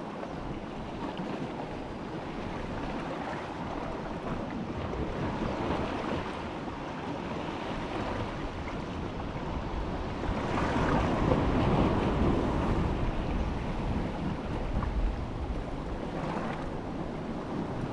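Wind buffeting the microphone over the wash of sea surf, a steady rushing noise that swells louder about ten seconds in and eases off a few seconds later.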